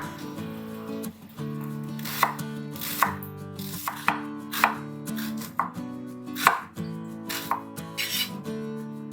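Kitchen knife slicing shallots on a cutting board: separate sharp chops, roughly one every half second to a second, over soft background music.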